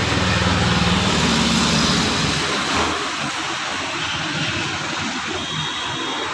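Road traffic noise: a motor vehicle's engine hum that fades about three seconds in, over a steady hiss of traffic.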